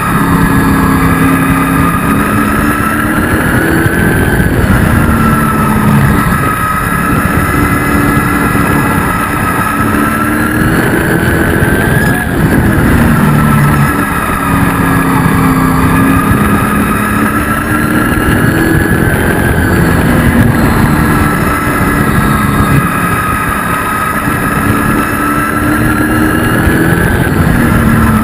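Race truck engine heard from inside the cab at racing speed, its pitch rising on each straight and dropping off into each turn, about every eight seconds.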